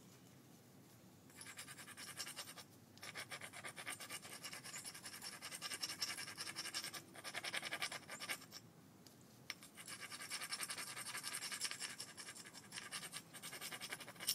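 Rapid scratching strokes of stone being rubbed along the edge of a piece of green sheen obsidian, as in edge grinding while flintknapping, in several long bursts with short pauses between.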